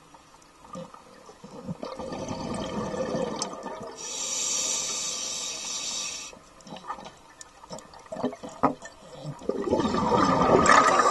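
A scuba diver breathing underwater through a regulator. A rush of exhaled bubbles gurgles past, then a steady hiss of inhaling through the demand valve follows, twice over.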